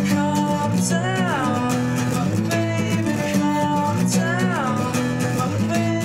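Acoustic guitar strumming steady chords in an instrumental passage of an acoustic song, with a higher melody line that slides up and back down about a second in and again about four seconds in.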